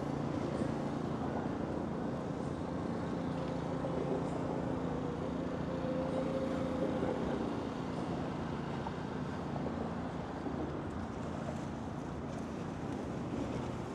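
Steady city traffic noise with a low engine hum, a faint higher tone coming and going over it.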